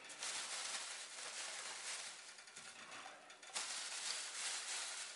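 Thin plastic bag rustling and crinkling as a hand rummages in it for smoked pork bones, with a sharper crinkle about three and a half seconds in.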